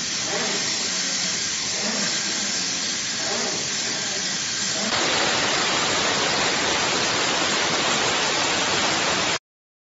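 SL-VI 100HP waterjet intensifier pump running with a steady hiss. About halfway through it changes to a louder, even hiss of the 55,000 psi waterjet stream cutting through a thick steel block, which stops abruptly near the end.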